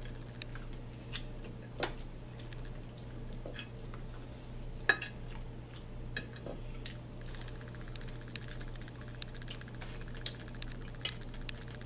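Scattered clinks and scrapes of a fork against a plate, with one sharper clink about five seconds in, over a steady low hum.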